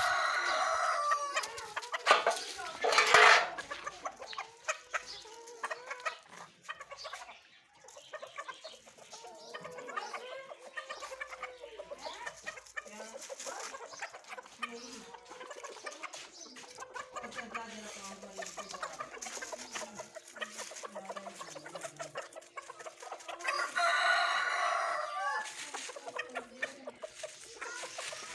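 Bantam chickens clucking, with a rooster crowing at the start and again near the end.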